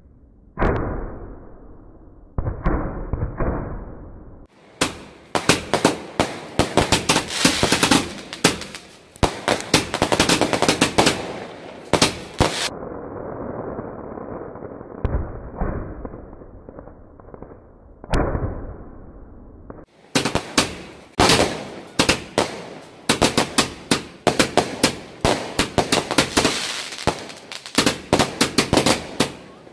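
A multi-shot aerial firework cake firing: a rapid string of launch bangs and bursting cracks, packed into dense runs, with two softer, duller stretches between them.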